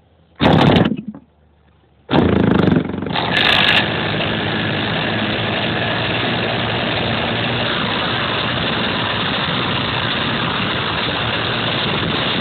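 Model airplane's motor and propeller starting up about two seconds in and then running steadily, heard through the onboard camera's microphone. A short loud burst comes about half a second in.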